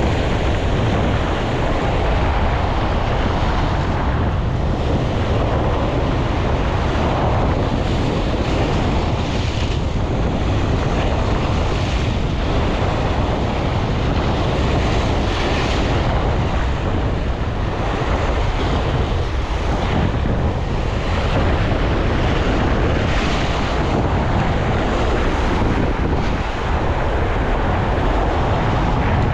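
Ocean surf breaking and washing over shoreline rocks, a continuous rush that swells with each wave, with wind buffeting the microphone.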